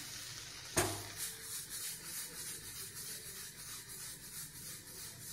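A spatula scraping and stirring sweet corn, onion and capsicum as they sauté in butter in a pan, in quick repeated strokes, with a sharp knock against the pan about a second in.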